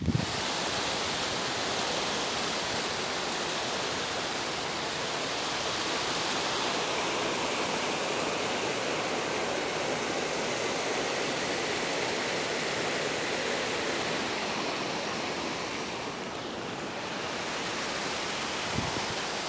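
Steady rush of a mountain stream cascading over rocks into pools. The sound eases off slightly near the end.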